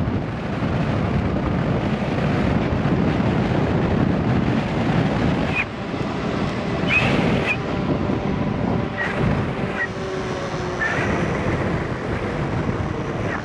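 Wind buffeting the microphone of a moving e-bike rider, a steady rushing noise with a few short high chirps scattered through the middle.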